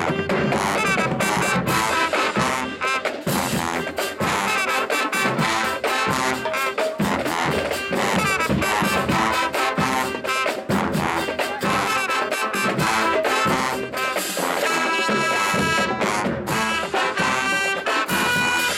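Marching band playing: trumpets and trombones over drums, loud and continuous with sharp drum hits, and a held brass chord about three-quarters of the way through.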